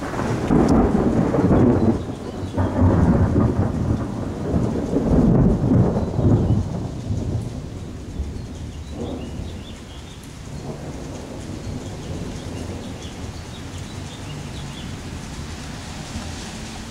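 Rolling thunder rumbling in several loud swells, dying away after about seven seconds to a steady sound of rain.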